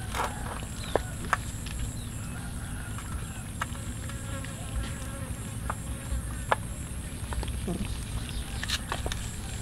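A group of cats eating rice off the ground: scattered small clicks of chewing and lapping, over a steady high insect drone.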